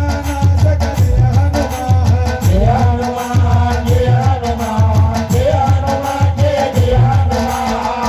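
Music with a steady low drum beat under a melody that slides up and down in pitch.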